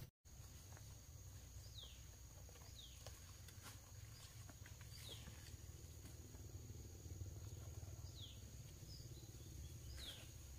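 Faint outdoor field ambience: an insect holds a steady high-pitched drone while a bird gives a short falling whistle now and then, about five times, over a low steady background rumble.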